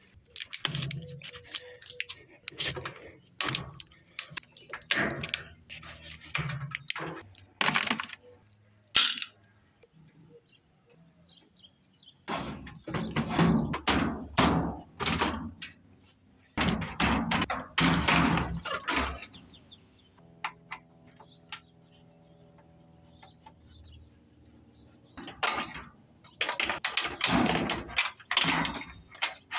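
A washing machine being taken apart with hand tools: a string of knocks, clanks and cracks of metal and plastic parts, with longer stretches of rasping tool noise. A steady hum comes in for a few seconds just past the middle.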